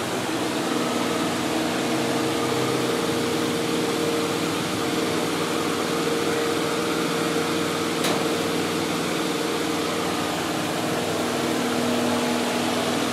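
Steady machine hum: a constant low drone with an octave overtone over an even hiss, unchanging throughout.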